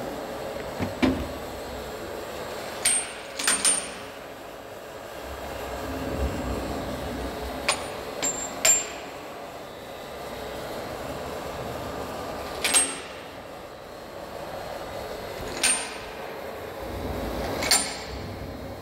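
Large WMW Zerbst CNC lathe running with a steady hum as its big faceplate turns. Sharp metallic clicks with a brief high ring sound every few seconds.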